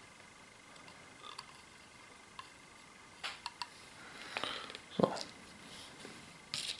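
Soldering iron and small tools handled on a workbench: a few light clicks about three seconds in, a short rustle, then one sharper knock about five seconds in, with more clicks near the end.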